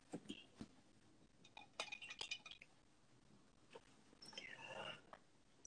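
Near silence with a few faint light clinks, a cluster about two seconds in and another near the end.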